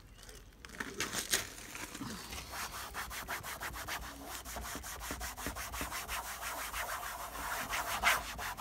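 A cloth rubbing teak oil into a vehicle's plastic trim in quick, even strokes: a steady rhythmic scuffing of several strokes a second, with one harder stroke near the end.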